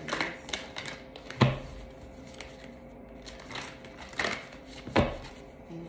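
A deck of oracle cards being shuffled and handled: a soft clatter of cards with several sharp taps, the loudest about a second and a half in and again near the end.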